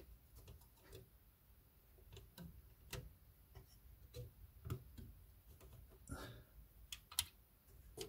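Faint, irregular clicks and taps of DDR4 server memory modules being wiggled in their slots to check that they are seated and locked.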